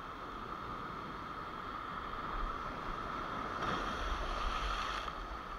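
Spinning reel being cranked with a steady whir, over surf washing against the rocks; a wave splashes up louder about two-thirds of the way through.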